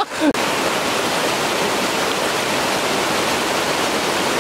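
Rushing water of a rocky stream pouring over riffles: a steady, even rush that sets in abruptly just after the start.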